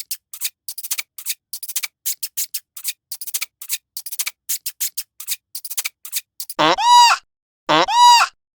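A run of quick, irregular light clicks and rustles, then two high bleats about a second apart near the end, each rising and then falling in pitch, from a young farm animal such as a kid goat or lamb.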